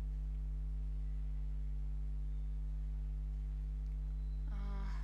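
Steady electrical mains hum, a low 50 Hz drone with a ladder of overtones, on the recording. Near the end a brief vocal sound cuts in.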